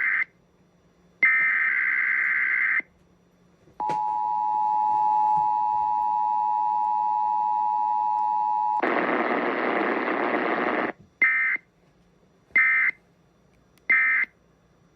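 Emergency Alert System test tones over radio. It opens with the end of one warbling SAME digital header burst, then a second full burst. A steady two-tone EAS attention signal follows for about five seconds, then about two seconds of static hiss, then three short end-of-message data bursts.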